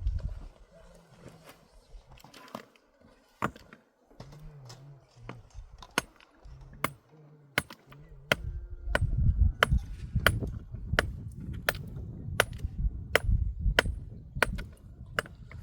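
A run of sharp, evenly spaced knocks, about one every 0.7 seconds, settling into a steady beat about six seconds in, with a low rumble underneath from about halfway.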